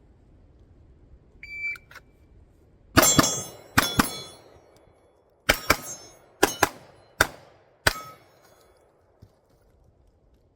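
A shot timer beeps once, then a pistol fires about eight shots in uneven pairs and singles, and steel targets ring after the hits.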